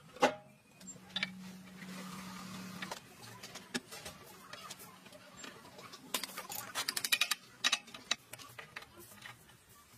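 Metal clicks, knocks and rattles from hands and tools working on the metal housing of a powder grinding machine, with a loud knock at the start and a quick run of clicks about six to seven seconds in. A low hum sounds for about two seconds from about a second in.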